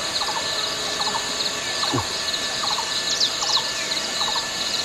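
Birds calling outdoors: short clusters of quick sweeping chirps, repeated about once a second, over a steady high insect drone.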